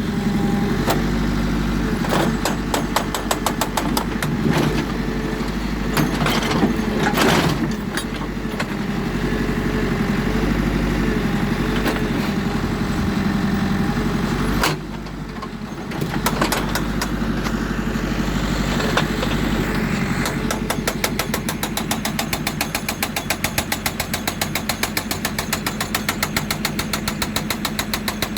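The diesel engine of a JCB 3D backhoe loader runs steadily under load, with scattered knocks and clatters in the first half and a brief dip about halfway. For the last third, a hydraulic breaker on the machine hammers at rock in a fast, even run of strikes.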